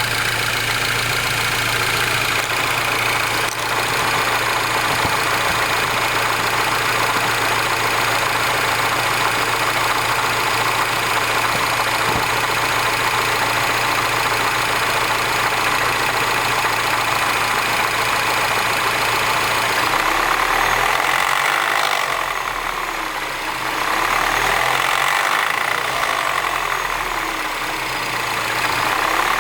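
Turbocharged 1.6-litre four-cylinder engine of an R56 Mini Cooper S idling after a cold start, with the rattle that marks its cold-start problem. The idle note changes about two-thirds of the way through, then the sound swells and dips twice.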